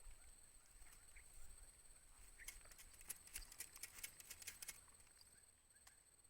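Faint outdoor ambience with a steady high-pitched drone and faint repeated chirps. A quick run of sharp clicks and taps comes about halfway through.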